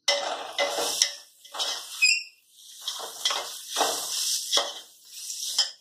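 A metal spoon stirring and scraping a thick onion-and-mint mixture in a stainless steel pot, in a series of strokes with clinks of metal on metal.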